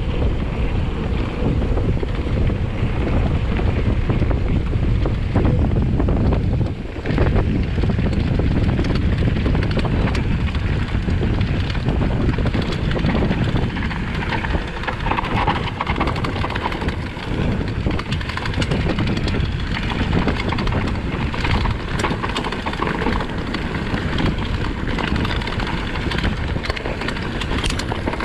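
Wind buffeting the camera microphone on a mountain bike riding downhill, with the tyres rumbling and the bike rattling over a rough trail. The noise dips briefly about seven seconds in.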